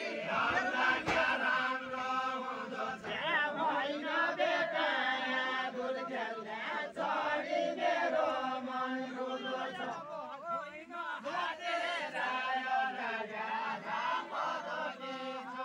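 A large group of men singing a Deuda folk song together in a chant-like chorus.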